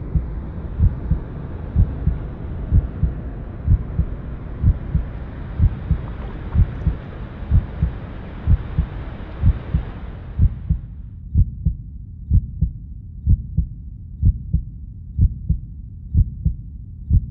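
Soundtrack with a slow, low thumping beat, about one thump a second, like a heartbeat. The fuller hiss above it cuts out about ten seconds in, leaving only the low thumps.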